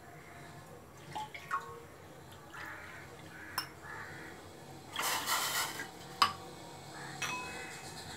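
Quiet kitchen background with a few scattered small clicks and knocks, the sharpest about six seconds in, and a short burst of hiss a little before it.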